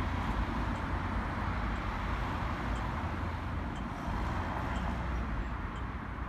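Road traffic noise: cars driving through a street intersection, a steady hiss of tyres and engines.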